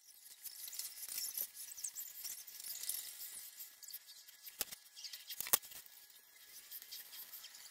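Graphite pencil scratching across drawing paper in quick, short shading strokes, with two sharp clicks about four and a half and five and a half seconds in.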